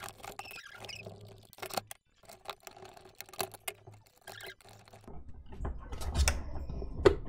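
Light clicks, taps and rustling of an automatic cat feeder's plastic housing being handled and fitted back together, with a low rumble and a few louder knocks in the last couple of seconds.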